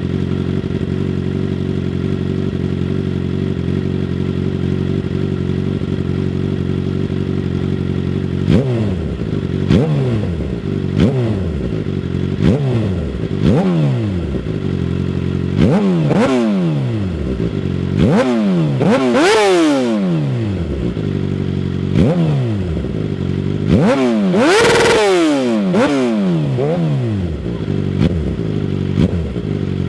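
2006 Suzuki GSX-R600 inline-four with a full Two Brothers exhaust idling steadily, then blipped repeatedly from about eight seconds in, each rev rising and falling back, with two higher, longer revs in the second half. A few light pops come as the revs drop, which the uploader puts down to the full exhaust system needing a fuel re-tune.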